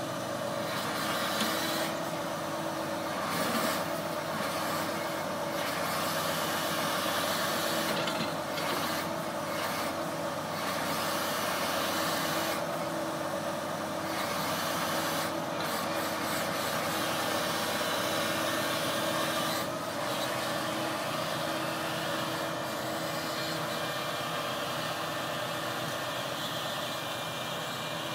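Boom truck's diesel engine running steadily while the crane is set up and worked, a continuous mechanical hum that eases off slightly about twenty seconds in.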